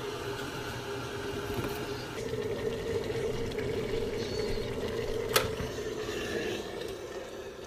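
Electric kettle heating water near the boil: a steady rumble and hiss that swells a little about two seconds in, with a single sharp click about five seconds in, after which the rumble dies away.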